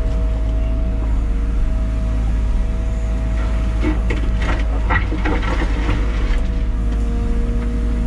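Liebherr 914 Compact wheeled excavator's engine and hydraulics running steadily with a low rumble and a constant whine. From about four seconds in, for two to three seconds, the bucket scrapes and crunches into dirt and stones.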